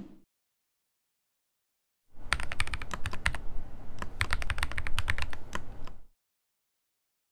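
Computer keyboard typing sound effect: a quick run of key clicks lasting about four seconds, starting about two seconds in, laid over text being typed out on screen.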